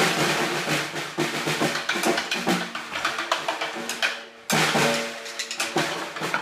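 A lone snare drum struck hard and fast with sticks in dense, irregular flurries, the drum ringing under the strokes. About four seconds in the playing thins and dies down, then comes back suddenly at full force.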